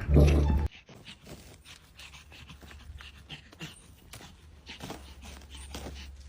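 A loud dog sound cuts off sharply under a second in. Then a dog pants softly and unevenly over a steady low hum.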